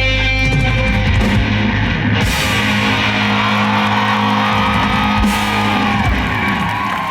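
Live rock band with electric guitars and drums playing the final held chords of a song, with a cymbal crash about two seconds in. High crowd cheers and screams rise over the ringing ending in the second half.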